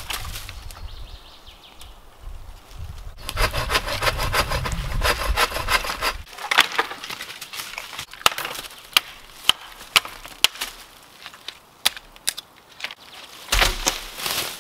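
Dry dead wood being cut and broken up by hand: a few seconds of quick, even hand-saw strokes, then a run of sharp snaps and cracks from dry branches breaking.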